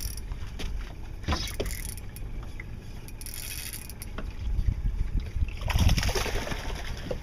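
Wind buffeting the microphone over water lapping against a small boat's hull, with a few scattered clicks and knocks. A louder rush of noise comes about six seconds in.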